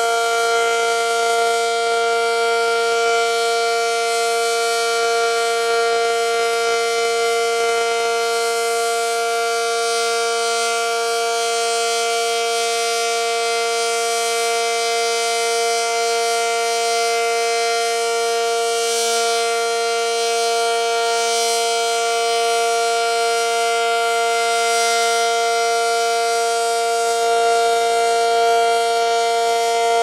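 ACA Cyclone 120 naturally aspirated omnidirectional outdoor warning siren sounding a steady tone at full speed during a test, its pitch holding level without winding down.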